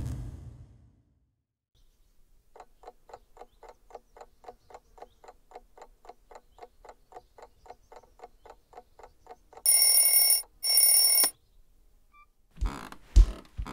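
A whoosh fades out at the very start, then an alarm clock ticks steadily, about four ticks a second. Its bell then rings in two short bursts, and a few thumps follow near the end.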